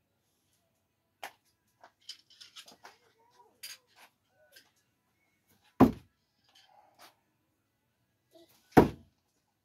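Two thrown screwdrivers hitting a wooden end-grain target with loud thuds, about three seconds apart. Before them, light metallic clicks and clinks as the screwdrivers are picked up and handled.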